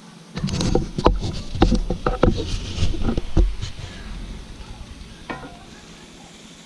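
Chunks of deer meat frying in butter in a skillet, sizzling, while a utensil stirs and breaks them up: a busy run of knocks and scrapes against the pan from about half a second in to about four seconds, then mostly the sizzle with one more knock.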